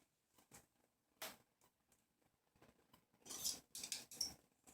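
Faint rustling and scratching of hands handling and pushing hair aside, in short bursts: one about a second in and several close together from about three seconds on.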